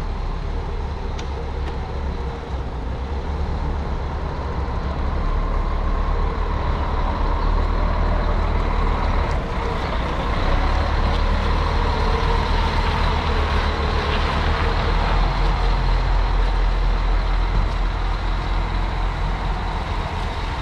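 Marcopolo G8 coach running on the road: a steady low engine rumble and road noise, with a faint constant high hum, growing a little louder after about five seconds.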